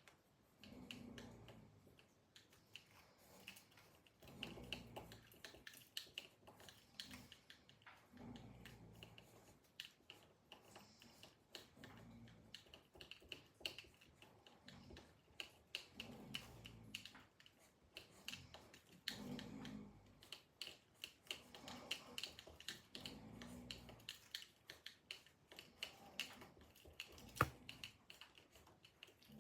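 A man snoring in his sleep, a low snore on each breath about every three and a half to four seconds, faint. Light clicking runs underneath, with one sharp click about 27 seconds in.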